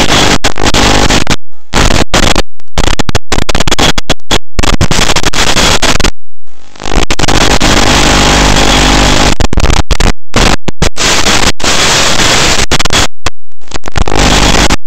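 Loud static hiss on the FPV quadcopter's analog video-link audio, cut by many brief sudden dropouts, with a faint steady high tone in the hiss.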